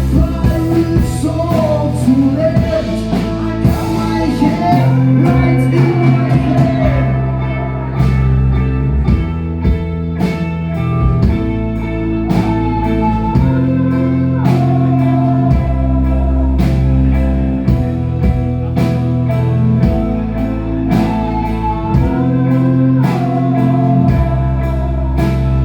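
Live rock band playing, with electric guitar, bass and drum kit keeping a steady beat, and singing in the first few seconds.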